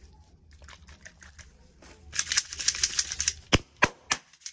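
Hands handling objects: a short burst of fast crackling, like plastic or paper being crumpled, about two seconds in, then three sharp taps in quick succession.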